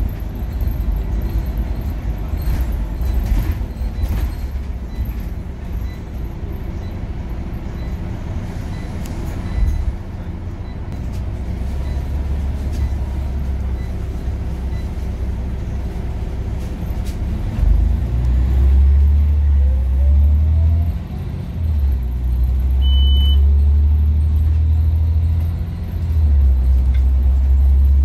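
Scania OmniCity bus's engine and ZF automatic gearbox running, heard inside the passenger cabin. A faint gearbox whine rises in pitch about halfway through, and a heavier low engine rumble comes and goes in the second half. A single short high beep sounds near the three-quarter mark.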